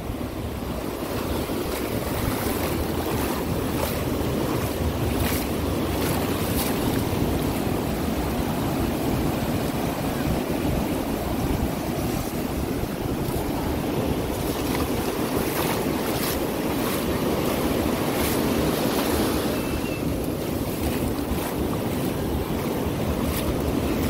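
Ocean surf washing on a beach, a steady rushing noise, with wind buffeting the microphone.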